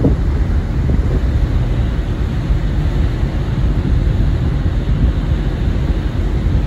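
Wind buffeting the microphone on the deck of a moving ferry, over the ship's steady low rumble. The low, gusty rush runs unbroken, with no tones or distinct events.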